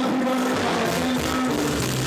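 Live reggae band playing, with electric guitar, bass and drums.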